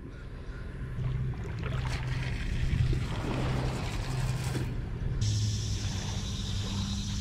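Low, steady drone of a boat's engine running out on the river, with insects starting a high buzzing about five seconds in.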